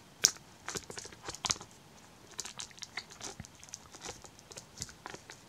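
Plastic shrink-wrap on a DVD box crinkling and tearing as it is picked open along the spine: a quick, uneven run of sharp crackles, the loudest about a quarter second in.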